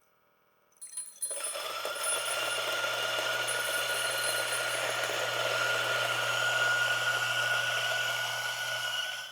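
Turin DF83V Gen 3 flat-burr espresso grinder running at 1,200 RPM and grinding a dose of coffee beans: a steady motor whine over the gritty noise of the beans going through the burrs. It starts about a second in, holds steady, and fades out at the end.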